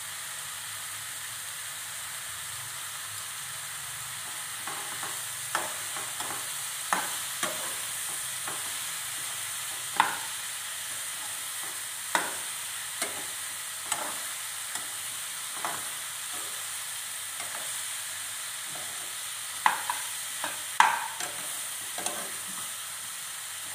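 Mushrooms frying in oil in a nonstick pan with a steady sizzle. A steel spoon stirs them, scraping and tapping against the pan at irregular intervals; the sharpest knocks come around the middle and near the end.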